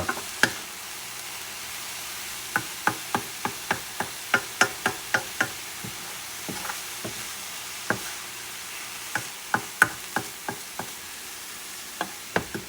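Cauliflower fried rice sizzling in a pan as it is stir-fried, nearly done, with the stirring utensil knocking and scraping against the pan in runs of sharp clicks, about three a second, pausing briefly around the middle.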